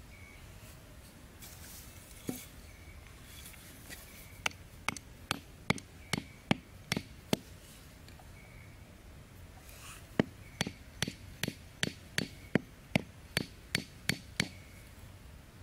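A bamboo stake being knocked into sandy ground with the back of a machete: sharp wooden knocks at about two and a half a second, a run of eight, a pause, then about a dozen more.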